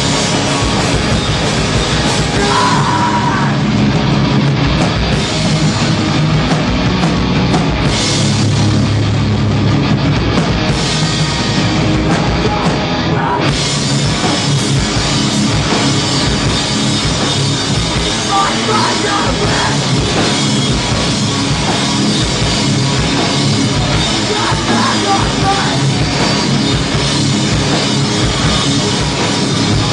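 Hardcore band playing live at full volume: loud guitars, bass and a pounding drum kit.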